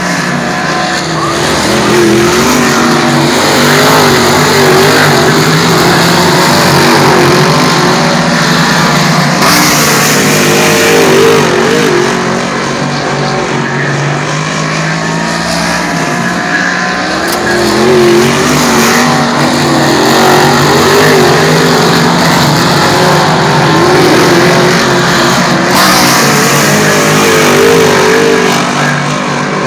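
Dirt modified race cars running hard around a clay oval, several engines revving up and falling off through the turns. The sound swells as the cars pass close, about ten seconds in and again near the end.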